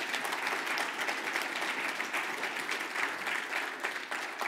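An audience applauding, many hands clapping at once, the clapping beginning to fade near the end.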